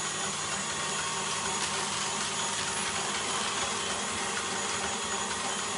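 A steady whirring hiss like a small running motor or fan, holding an even level with no separate knocks or clicks.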